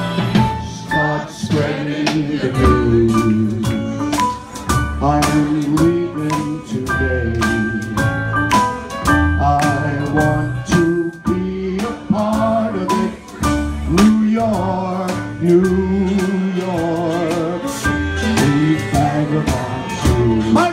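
A man singing into a handheld microphone over a live band, with drums keeping a steady beat; his voice wavers with vibrato on the held notes.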